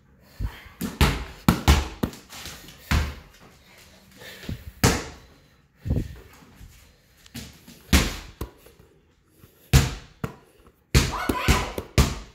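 A series of irregular thumps and knocks at uneven intervals, with a denser cluster of sound near the end.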